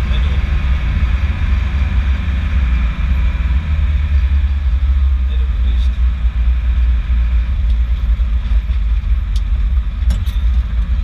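Fendt 512 TurboShift tractor's diesel engine running steadily, heard from inside the cab with its deep drone and cab rattle.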